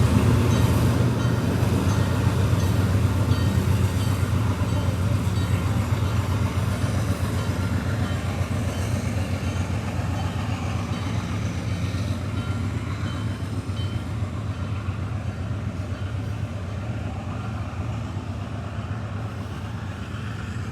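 Train cars rolling past a railroad crossing: a steady rumble with the clack of wheels over the rails and the crossing bell dinging, slowly fading.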